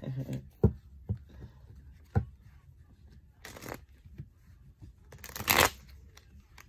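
Tarot cards being handled and shuffled: a few light knocks and two short swishes of the deck, the louder one near the end.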